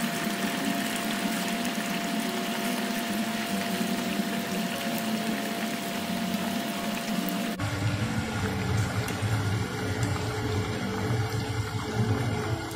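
Chicken pieces deep-frying in a pot of hot oil: a dense, steady sizzle of vigorously bubbling oil. About seven and a half seconds in, the sound changes abruptly and a deeper rumble comes in underneath.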